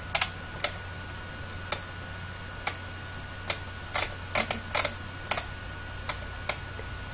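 Scattered clicks from a computer keyboard and mouse, single irregular clicks with a quick cluster about four to five seconds in, over a faint steady hum.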